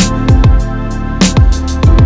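Background music with a beat: deep kick drums that drop in pitch, sharp percussion hits and sustained chords.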